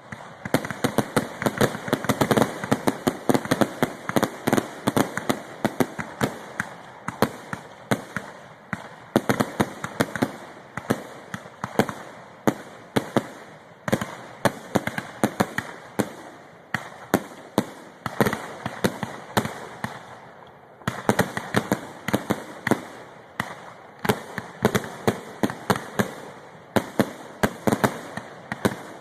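Fireworks finale: a rapid, continuous barrage of aerial shell bursts, several bangs a second, with crackling between them.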